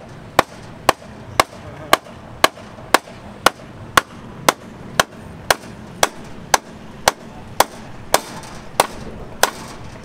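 A hammer striking steel reinforcing bars in steady, evenly paced sharp blows, about two a second.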